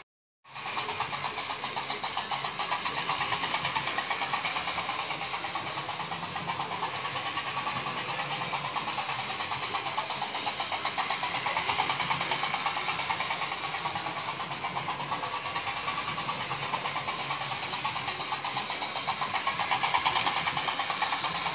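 Model locomotive 6201 Princess Elizabeth running steadily on track. Its motor buzzes and its wheels run on the rails, with a fast, even chopping from the piston unit in its tender.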